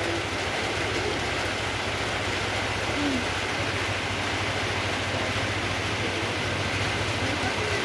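A steady low engine drone with an even hiss over it.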